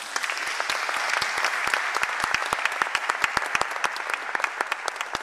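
Audience applauding: a dense wash of clapping, with individual sharp claps standing out more as it thins slightly near the end.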